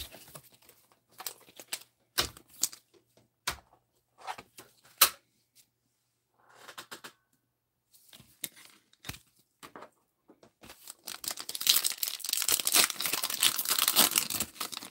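Scattered short clicks and taps of trading cards and a plastic toploader being handled, then, in the last few seconds, a booster pack's wrapper torn open and crinkled, the loudest sound.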